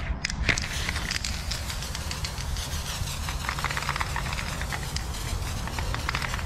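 Aerosol spray paint can fitted with a fat cap, spraying paint onto a wall: a hiss in repeated strokes, with scattered clicks and rattles.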